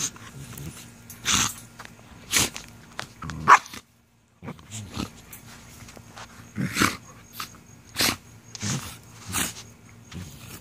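Two puppies play-fighting, growling and yipping in short bursts about once a second.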